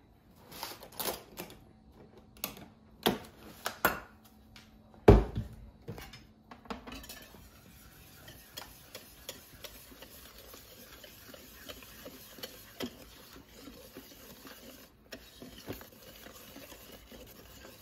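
A whisk beating a thick cream-and-flour mixture in a slow cooker's crock: a few sharp knocks at first, the loudest about five seconds in, then steady fast ticking and scraping of the whisk against the crock.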